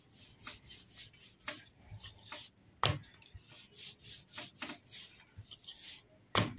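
Rolling pin rolled back and forth over dough on a wooden board: a soft, repeated rubbing about twice a second, with a couple of light knocks of wood on wood.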